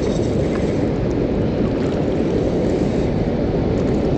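Steady, loud rush of water pouring over a river dam spillway, a deep even noise with no pauses.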